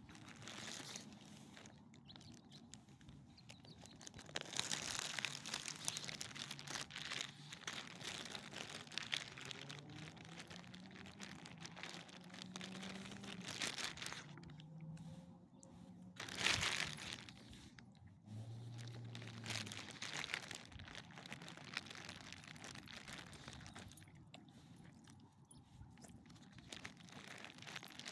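Irregular crunching footsteps on a dry, rough surface during a walk, with a sharper crunch about halfway through.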